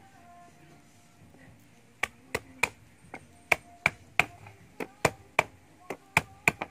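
Fist pounding the flat of a cleaver blade to crush ginger against a plastic cutting board: about fourteen sharp knocks, starting about two seconds in and coming unevenly two to three a second.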